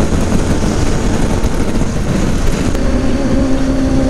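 BMW motorcycle riding at highway speed: heavy wind rush on the microphone over the engine running steadily, with the engine's tone coming through clearer about three seconds in.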